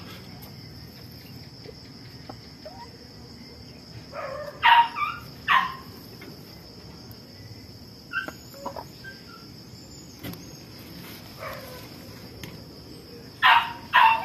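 Chickens giving short, loud squawking calls, a pair about five seconds in and another burst near the end, with a few fainter calls between, over the steady high trill of crickets.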